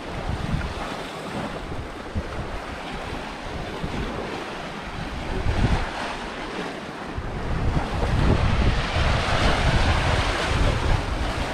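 Sea surf washing against shore rocks, with wind buffeting the microphone; the wind rumble and the surf both grow louder about two-thirds of the way in.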